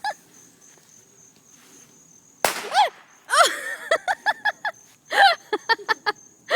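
A lit firework goes off with a single sharp bang about two and a half seconds in. It is followed by a quick run of excited cries and yelps from the people nearby, over the steady high chirping of crickets.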